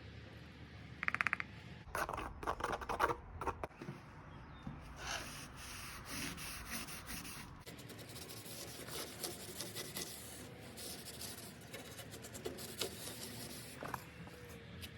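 Rubbing and scraping as wood stain is mixed and worked, with a short fast rattle about a second in and a cluster of louder knocks and scrapes soon after.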